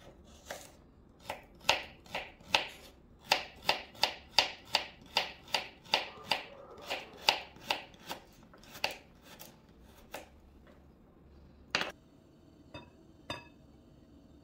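Knife chopping carrot into dice on a bamboo cutting board, steady sharp strikes about two and a half a second that stop about ten seconds in. Near the end, one sharp knock and two lighter clicks.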